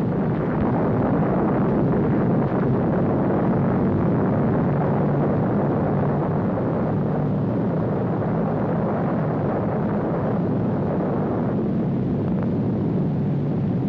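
Newsreel sound of an atomic bomb explosion: a long, steady rumble with no breaks, easing slightly near the end.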